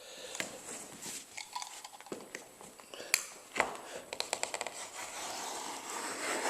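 Knife cutting through two overlapped layers of sheet vinyl along a metal straightedge to make a double-cut seam. There are scattered clicks and taps, a quick run of ticks about four seconds in, and a soft scraping hiss near the end.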